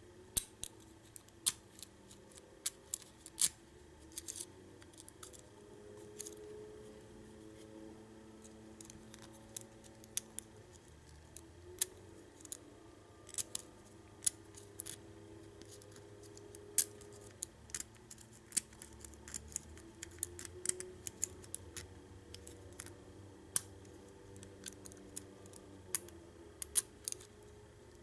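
Lock pick and tension wrench working the pins inside a US Lock five-pin deadbolt cylinder during single-pin picking: small, sharp metallic clicks and ticks at irregular intervals, sometimes several in quick succession.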